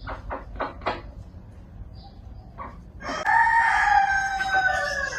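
Chickens clucking in short, quick calls, then a rooster crowing: one long call starting about three seconds in and sliding slightly down in pitch.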